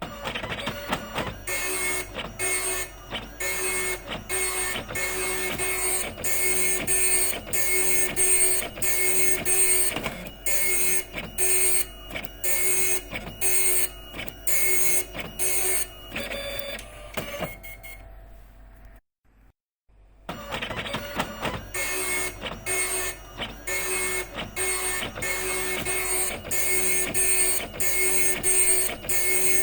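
Epson dot matrix printer printing, its print head making rasping passes about twice a second. Around 16 seconds in it drops to a quieter whir, then stops briefly near 19 seconds. Printing resumes at about 20 seconds.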